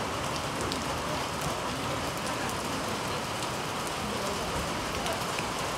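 Heavy rain falling steadily, a dense even hiss with scattered faint drop ticks.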